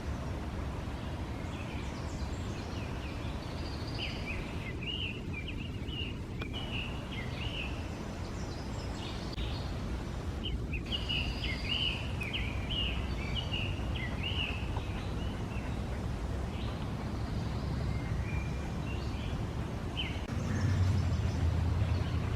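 Songbirds singing in short chirping phrases over a steady low outdoor background noise.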